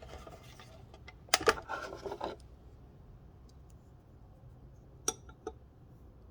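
Pocket knife being handled and set on a small scale: a pair of sharp hard clicks with a brief clatter about a second and a half in, then two lighter clicks about five seconds in.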